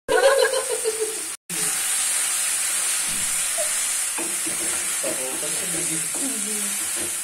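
Chicken liver and gizzard masala sizzling in an aluminium pot over a gas flame while a wooden spatula stirs it through, in the final frying-down (bhuna) stage; a steady frying hiss with stirring and scraping, cut by two brief dropouts near the start.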